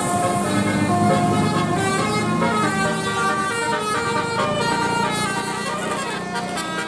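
Indonesian bus 'telolet' multi-tone horn playing a quick tune of short, changing notes.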